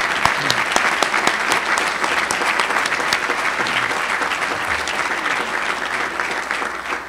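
Audience applauding, a dense patter of many hands clapping, beginning to die away at the very end.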